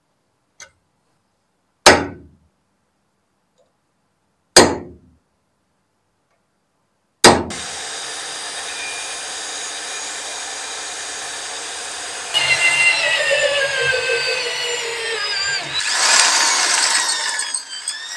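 Three sharp metallic strikes on the steel axe head, about two and a half seconds apart. Then a power drill runs, and from about twelve seconds in its twist bit cuts into the steel with a squeal that falls in pitch, getting louder and harsher near the end as the hole is bored.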